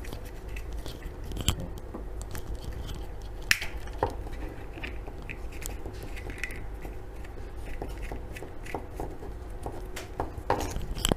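Scattered sharp clicks, small knocks and scrapes of phone holder stand parts being handled and fitted together by hand, with a few louder clicks about a second and a half in, around three and a half to four seconds in, and near the end.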